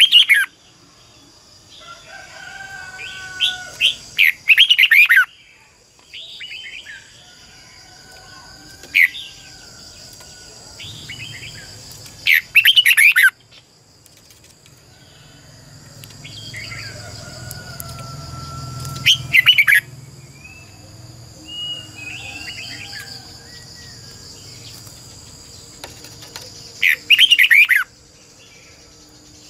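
Red-whiskered bulbul singing: short, loud, warbled phrases of quick sweeping whistles that come every few seconds, with softer calls in between. A steady high insect trill runs behind it.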